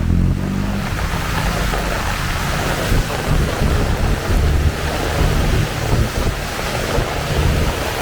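Heavy rain pouring steadily, with a low, uneven rumble of wind buffeting the microphone.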